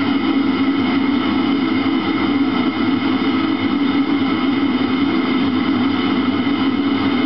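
Eberspächer Hydronic D5WZ diesel water heater running: a steady, even rushing hum from its combustion air blower and burner, with a few faint steady high tones above it.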